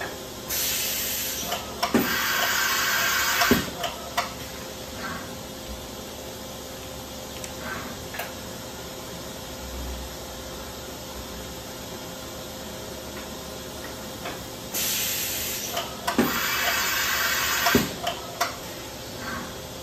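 2006 Fadal VMC 8030 HT CNC machining centre changing tools: two loud hisses of air, each about three seconds long, the first starting about half a second in and the second about fifteen seconds in, each ending in sharp metallic clunks. A steady machine hum runs underneath.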